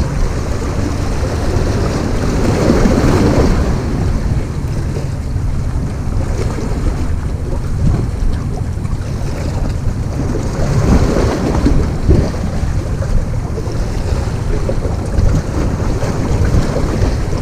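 Wind rumbling on the microphone over sea waves washing against shore rocks, swelling louder a few seconds in and again past the middle.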